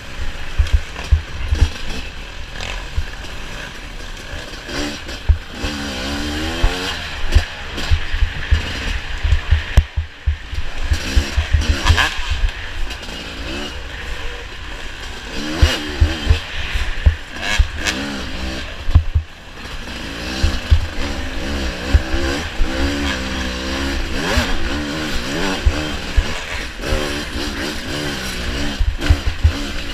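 Off-road racing vehicle's engine revving up and down over and over as it accelerates and lifts off, with frequent knocks and thumps from the rough track.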